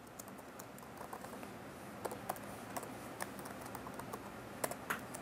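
Typing on a computer keyboard: a faint, irregular run of quick key clicks.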